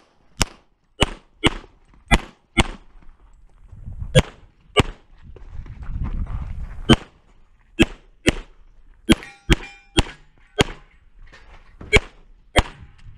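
A CZ pistol in .40 S&W firing about sixteen shots, mostly in quick pairs about half a second apart, during a USPSA stage run. A brief ringing tone comes between shots near the middle.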